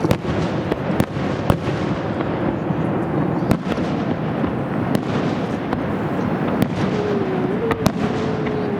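Fireworks display finale: a continuous dense crackle and rumble of shells bursting, punctuated by sharp bangs roughly every second. A thin held tone comes in near the end.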